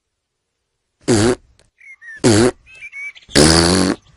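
George Pig, the cartoon toddler piglet, hiccuping: three sounds about a second apart, the last longer and buzzier.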